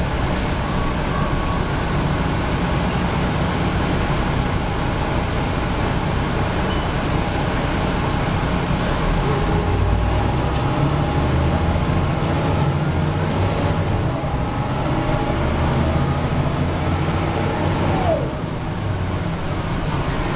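Cabin sound of a Mercedes-Benz O405G articulated bus under way: the diesel engine drones low while the ZF Ecomat 4HP590 automatic gearbox whines loudly, its pitch rising and falling with road speed. Near the end the whine drops in pitch and the sound dips briefly.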